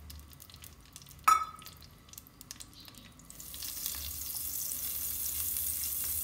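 Butter and olive oil sizzling in a pot as the butter melts, starting about three seconds in and settling into a steady sizzle while it is stirred with a silicone spatula. About a second in, one loud metallic clink that rings briefly.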